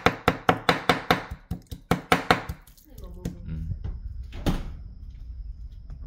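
Kitchen knife rapidly chopping small raw octopus (nakji) on a wooden cutting board, about six strokes a second, for tangtangi; the chopping stops about three seconds in.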